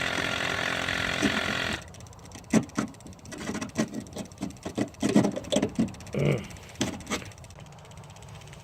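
A steady engine-like running sound stops abruptly a little under two seconds in. It is followed by scattered short clicks and knocks of metal being handled.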